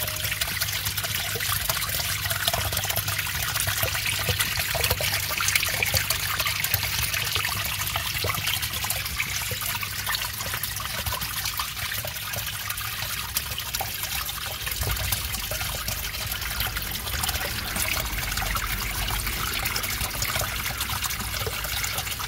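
Turtle-tank filter outlet jetting into the water: a steady trickling splash, with a low rumble underneath that grows stronger about two-thirds of the way through.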